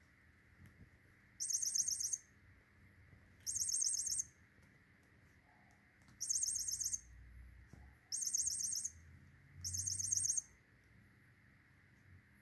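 High, bird-like chirping trills, five short bursts of rapid repeated notes a second or two apart.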